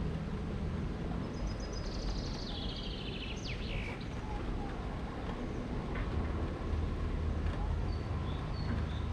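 A songbird sings one descending trill of quick high notes about a second in, and a few short chirps come near the end, over a steady outdoor hiss with a low rumble.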